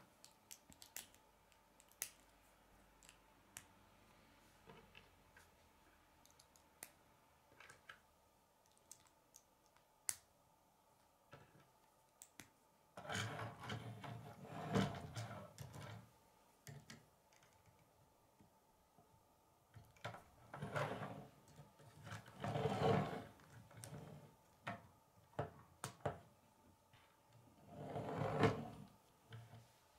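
Plastic K'nex rods and connectors being handled and snapped together on a wooden table: scattered small clicks, with a few longer stretches of louder handling noise.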